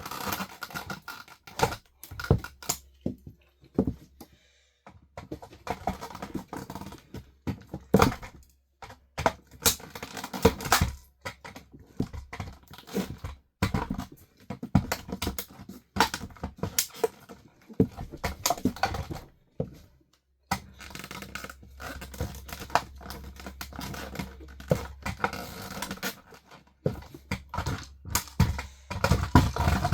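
Plastic of an RC toy car cracking, snapping and crunching under high heels: many irregular sharp cracks with short pauses between bouts of crushing.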